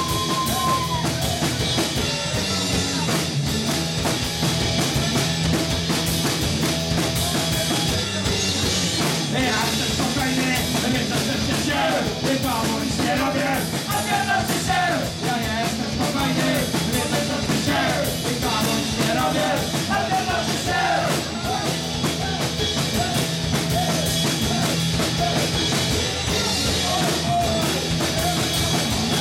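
A punk rock band playing live, with a drum kit driving a steady beat and singing over it.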